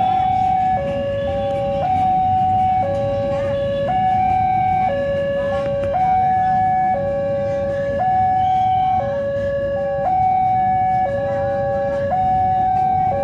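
Railway level crossing warning alarm sounding an electronic two-tone signal that switches between a high and a low tone about once a second, signalling an approaching train. The low noise of idling road traffic runs underneath.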